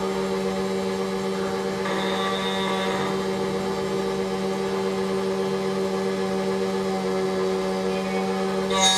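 SEC-E9 automatic key cutting machine running its cutter, milling a new key blank: a steady motor whine with an even hum, and some brighter cutting noise about two seconds in.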